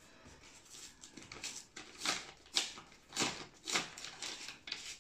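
Paper rustling and crinkling in the hands as a card is handled, in a series of short, irregular crackles that are loudest in the second half.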